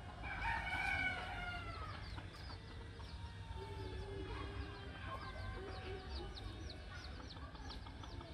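Chickens calling: a long call about half a second in that falls away at its end, then lower clucking, with many quick high chirps throughout.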